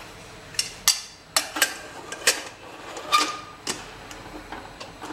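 A stainless steel pressure cooker's lid being put on and its handle locked against the pot's handle: a quick series of metal clicks and knocks, one with a brief ring. The clicks stop about four seconds in.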